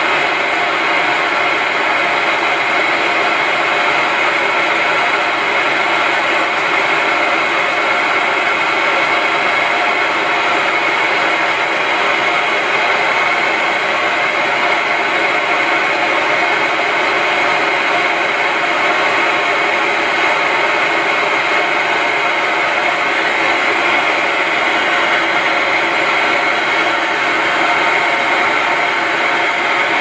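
Steady, loud white-noise hiss, unchanging throughout: the white-noise signal that shakes the silicone oil bath and keeps the droplet bouncing.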